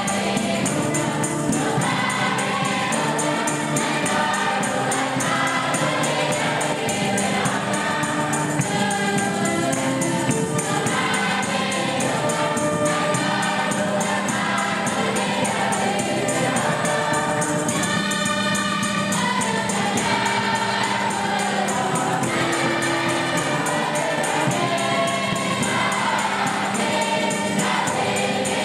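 Gospel choir singing together with rhythmic percussion, a steady ticking beat running under the voices.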